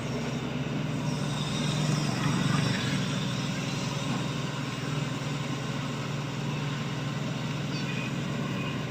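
Shantui excavator's diesel engine running steadily, swelling briefly about two to three seconds in.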